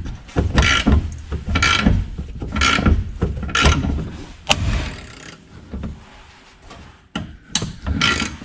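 Ratchet wrench worked back and forth in repeated clicking strokes, about one a second, with a single sharp metallic click about halfway through, a short pause, then a few more strokes near the end.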